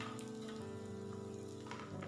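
Background music with held notes. Underneath it, a faint sizzle of aromatics frying in oil, and a ladle knocking twice against an aluminium wok, once at the start and once near the end.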